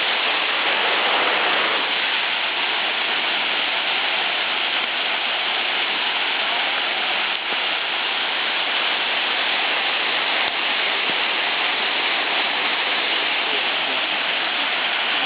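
Tall waterfall: a steady rush of falling water.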